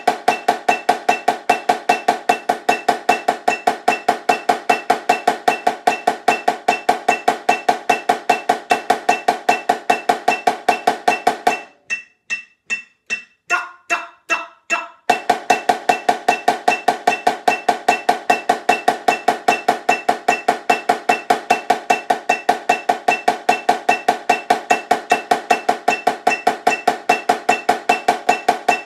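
Marching snare drum played with sticks in a fast, even stream of strokes. About twelve seconds in the stream breaks off for a few separate, spaced strokes, then the even pattern resumes for the rest.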